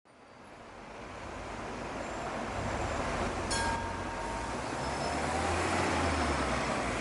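Night city street traffic, with double-decker bus engines running and road noise, fading in from silence over the first couple of seconds. A brief sharp rattle comes about three and a half seconds in.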